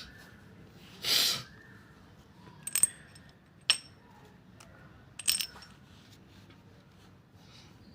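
Small metal parts clinking: a brief rustle about a second in, then a few sharp, ringing metallic clinks.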